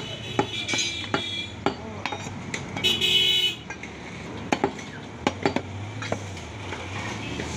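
Heavy butcher's cleaver chopping beef on a wooden log chopping block: sharp chops at an irregular pace. About three seconds in comes a brief, loud high-pitched tone.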